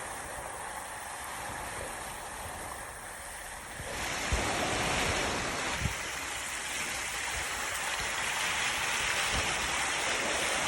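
Heavy rain with rushing rainwater, a steady rush that gets louder about four seconds in, with two brief low thumps.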